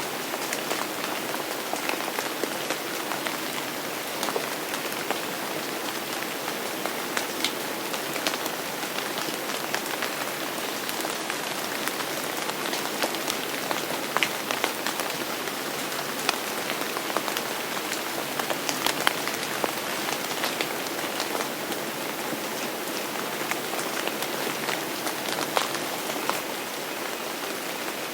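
Steady rain falling on a hard surface: an even hiss with many individual drops ticking sharply through it.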